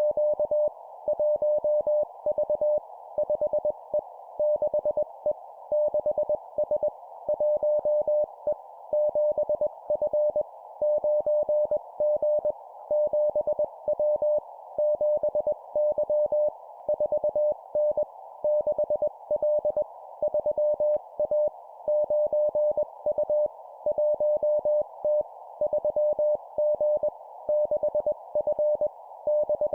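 Morse code (CW) at 20 words per minute: a single pitched beep near 600 Hz keyed in quick dots and dashes, sent as short two-character groups of letters and numbers with a brief pause between groups, over a steady narrow band of hiss.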